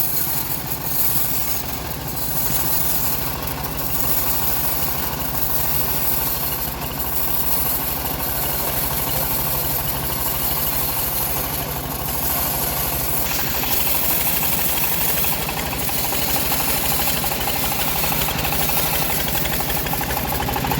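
Engine of a home-built bandsaw sawmill running steadily, with a hiss in the highs; the sound shifts a little about two-thirds of the way through.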